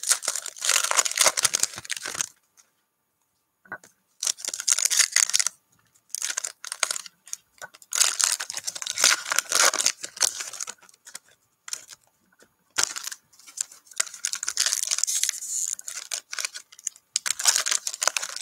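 Foil-lined wrapper of a Panini NBA Hoops trading card pack being torn open and crinkled by hand, in crackling bursts of a second or two with short pauses between them.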